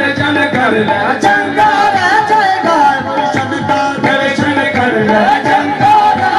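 Qawwali music: hand drums playing a fast, steady beat under a held, wavering melody line.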